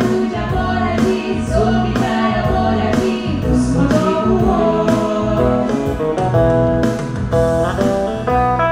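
Live band music with a man and a woman singing a duet over keyboard and drum accompaniment.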